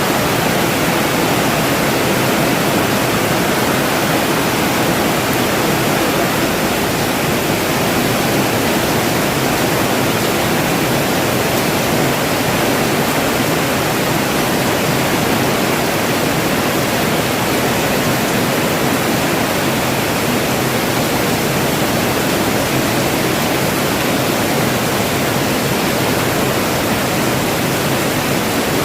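Steady heavy rain falling, an even rushing hiss with no breaks.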